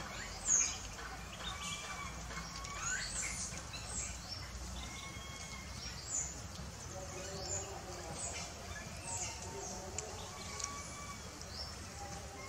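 Wild birds chirping and twittering: many short, high calls and whistles scattered throughout, the loudest a quick falling chirp about half a second in.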